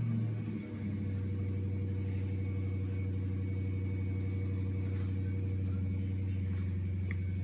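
Dodge Charger R/T's 5.7-litre Hemi V8 running at fast idle just after a cold start. The note dips briefly under a second in, then holds steady.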